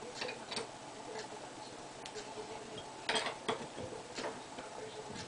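Scattered light metallic clicks and taps from a lathe tool post, its cutting tool and a hex key being handled, the clearest two about three seconds in.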